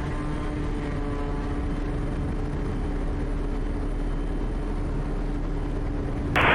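Quest Kodiak's PT6A turboprop engine and propeller at takeoff power during the takeoff roll: a steady, unchanging drone with a constant tone.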